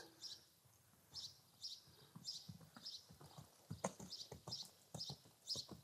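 Faint hoofbeats of a horse cantering on a sand arena: soft, even strides about twice a second.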